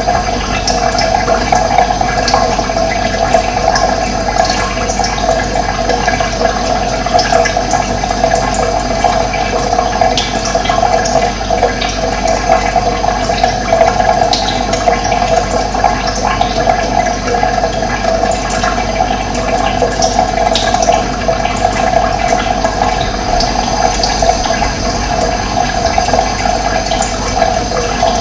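Running water, a steady flow that doesn't let up.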